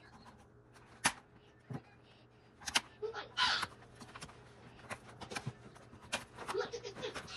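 Scattered light knocks and a brief rustle as potatoes and other groceries are handled on a granite countertop, over a faint steady low hum.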